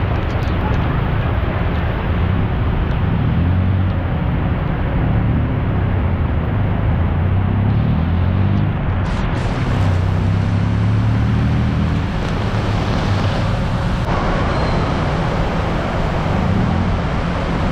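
Heavy downpour with road traffic passing close by on a wet road: a steady wash of rain noise with vehicle engines under it, one rising in pitch around the middle.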